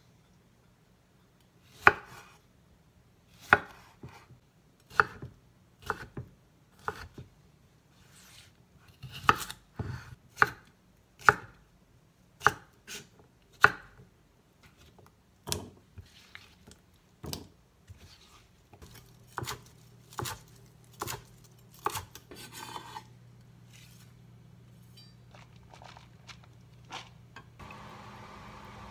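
Chef's knife cutting tomato and cucumber on a bamboo cutting board: single sharp knocks of the blade on the board, about one a second, thinning out after about twenty-three seconds.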